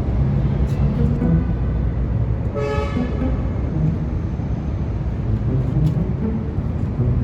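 Steady road-traffic rumble with a short car-horn toot nearly three seconds in.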